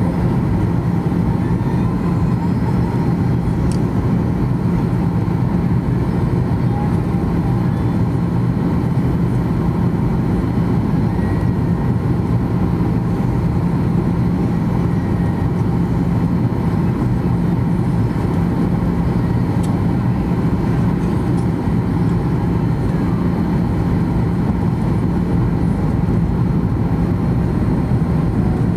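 Steady cabin noise inside a Boeing 737-800 on approach: a constant low hum from its CFM56-7B turbofan engines under an even rush of air past the fuselage.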